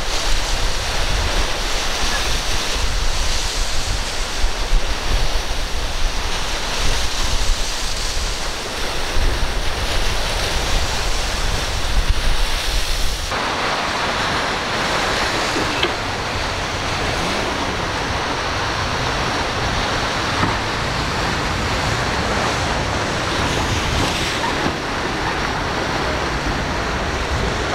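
Strong wind buffeting the microphone over rough, breaking sea waves. About halfway through it changes abruptly to a steadier rush of surf breaking on rocks.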